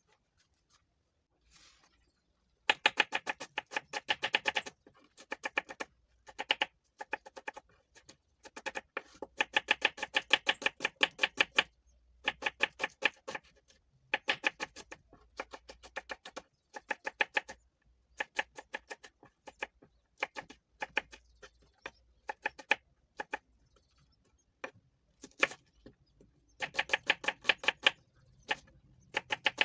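Kitchen knife chopping red onion on a wooden cutting board: quick runs of sharp taps, several a second, each run lasting a few seconds with short pauses between.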